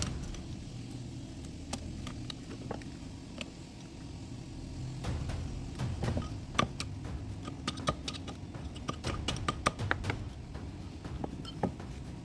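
Irregular clicks and scrapes of a metal tool working on air-compressor cylinder head parts, scraping off hardened carbon deposits, over a low steady hum. The clicks come thicker in the second half.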